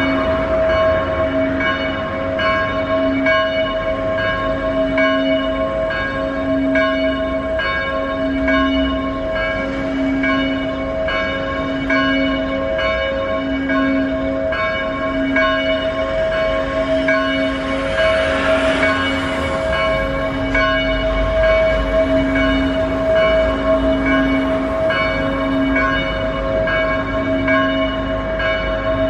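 Church bells ringing in a steady rhythm, struck a little more than once a second, their tones ringing on between strokes.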